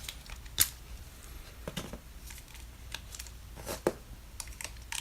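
Small plastic toy pieces being handled: the snap-on outfit of a Minnie Mouse Snap n Pose figure being changed, with a handful of sharp clicks and light rustling.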